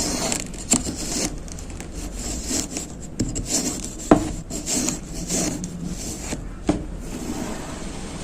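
Knife cutting and scraping through kinetic sand in uneven strokes, with three short sharp clicks.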